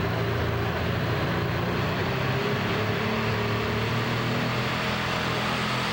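Multi-turbocharged, methanol-burning Light Super Stock pulling tractor engine idling steadily at the starting line, hooked to the sled.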